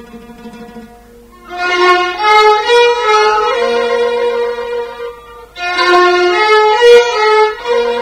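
Violins playing the instrumental introduction of a Sudanese song. Quiet held notes swell about a second and a half in into a loud melodic phrase, and after a short dip a second phrase starts about five and a half seconds in.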